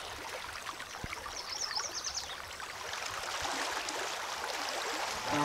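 Shallow river water flowing, with the splashing of a person wading through it knee-deep.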